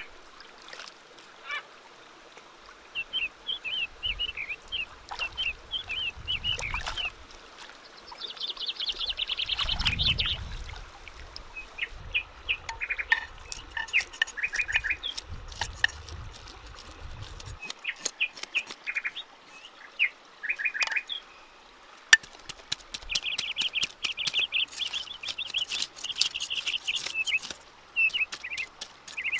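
A knife scraping the scales off a carp on a wooden chopping board, in runs of quick, scratchy strokes.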